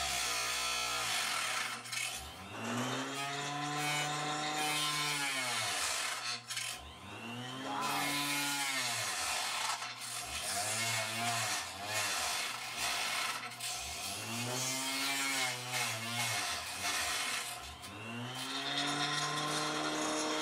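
Harbor Freight 4-inch Mighty-Mite mini table saw cutting a scrap FR4 fiberglass circuit board: a harsh grinding rasp over the motor's whine. The whine's pitch sags and recovers again and again as the blade bogs down in the board, which is too tough for it.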